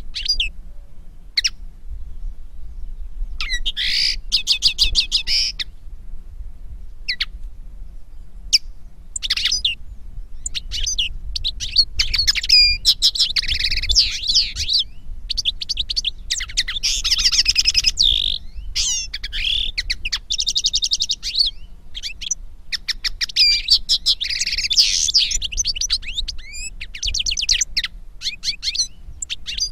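Songs of a European goldfinch and a common linnet: fast twittering and trilling phrases of a second or two, separated by short pauses, over a faint low hum.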